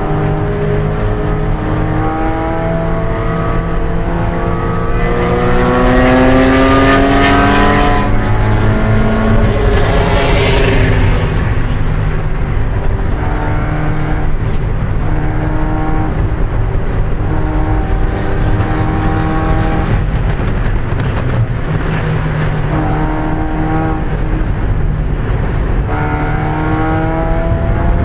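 A 1995 Mazda Miata's 1.8-litre four-cylinder engine at racing load. It climbs steadily in pitch for several seconds, drops about eight seconds in, holds fairly steady through the middle and climbs again near the end. A brief hissing rush comes about ten seconds in.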